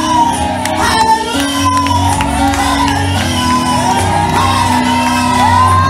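A woman singing a gospel praise song into a microphone over a PA, holding long notes, with electronic keyboard accompaniment.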